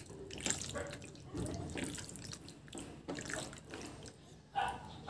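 Bare hands squeezing and turning chicken breast pieces in a wet soy-and-calamansi marinade in a glass bowl: irregular soft squelches and slaps. A brief pitched sound comes in near the end.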